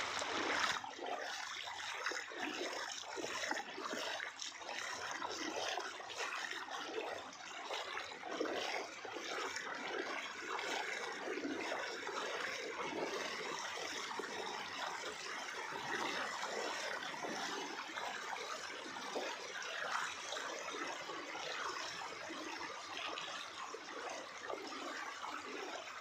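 Floodwater running steadily across a submerged road.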